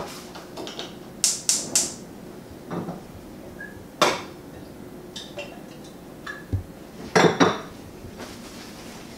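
Kitchen clatter of pots, pans and dishes: a few sharp clinks and knocks, three close together about a second in, a single one about four seconds in, and a cluster near the end, as a frying pan and utensils are handled at the stove.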